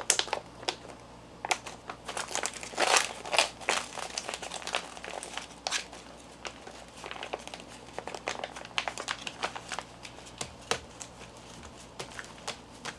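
Foil-backed Mylar food pouches crinkling as they are handled, in irregular bursts with a few sharp clicks.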